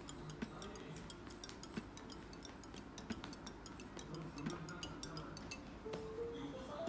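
Many light, irregular ticks and clicks from a cat batting at a wand toy and scrabbling on bedding, over faint background music.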